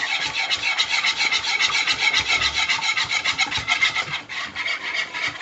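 Wire whisk scraping round a saucepan of thick satay sauce in quick, even strokes, several a second, with a brief slackening about four seconds in.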